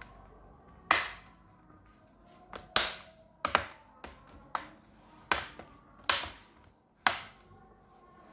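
Plastic bottom-cover clips of an MSI GF65 laptop snapping into place one after another as the cover's edge is pressed down, about seven sharp loud clicks at irregular intervals with a few fainter ones between.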